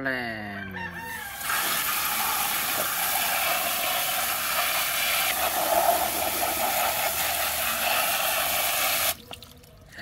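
Hose spray nozzle blasting a steady jet of water onto a plastic toy car. It starts about a second and a half in and cuts off suddenly near the end.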